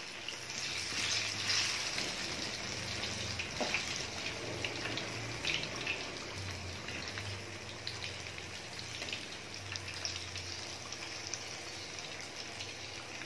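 Battered banana fritters frying in hot oil in a metal wok: a steady sizzle and crackle, with a few scrapes and taps of a metal spatula turning them. The fritters are golden and about done.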